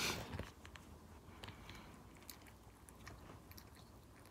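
Faint rustling and light taps as plush dog toys are handled and set down on a wooden floor: a brief louder rustle at the start, then only scattered soft ticks.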